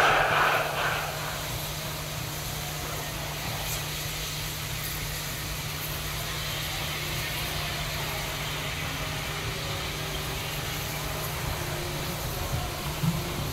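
SY class 2-8-2 steam locomotives standing with a heavy coal train: a steady low rumble and hiss of steam. The last loud exhaust beats die away about a second in, and a few sharper chuffs come near the end.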